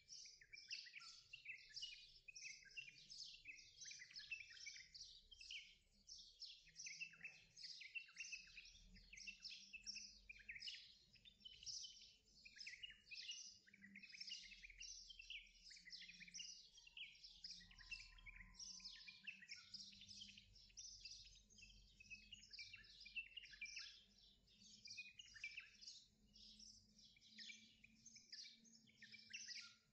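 Faint, continuous chorus of many small birds chirping and twittering, the calls densely overlapping without a break.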